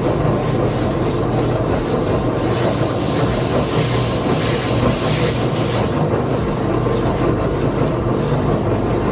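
Electric woodworking sander running steadily, with the rub of a wooden skateboard deck being sanded against it.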